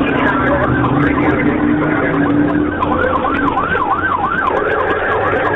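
Police siren in rapid yelp mode, its pitch sweeping up and down about three times a second, over engine and road noise during a pursuit. A steady low hum sits under it in the first half.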